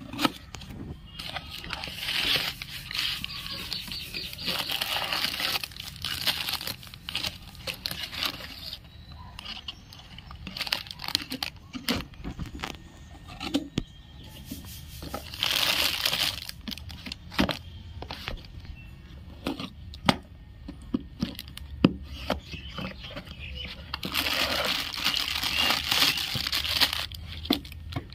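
Cardboard toy boxes being opened and plastic-bagged toy tractors slid out, with crinkling and rustling of plastic and cardboard in three main bouts and short knocks as boxes and toys are handled and set down.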